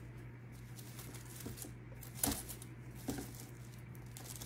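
Faint rustling of dried grass stems and paper as they are pressed and arranged by hand on a scrapbook page, with a light tap a little past halfway, over a steady low hum.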